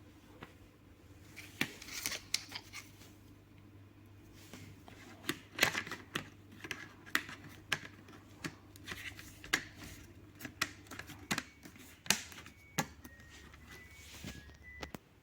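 Irregular clicks, taps and short rustles of plastic fan parts being handled, over a low steady hum that stops near the end.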